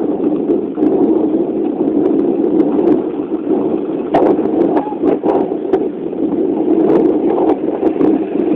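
Rough outdoor field audio: a steady rushing noise of street commotion and wind on the microphone, broken by several sharp cracks about four, five and seven seconds in.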